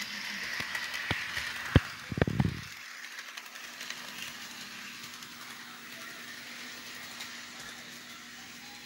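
HO scale model locomotive running on its track, a steady faint whir with a low hum. A few sharp clicks come in the first two seconds, and a short low bump follows about two and a half seconds in.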